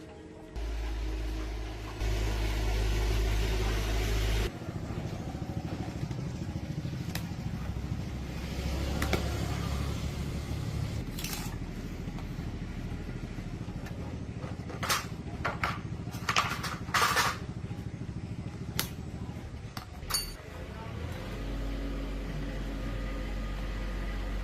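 A machine running with a steady low hum that starts about half a second in. It is louder, with added hiss, for a couple of seconds near the start. A few sharp clicks and knocks come partway through.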